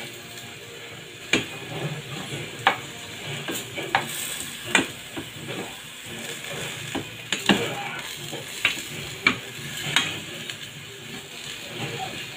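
Sliced bitter gourd (ampalaya) sautéing in a metal pan with a steady sizzle, while a spatula scrapes and knocks against the pan about once a second as it is stirred.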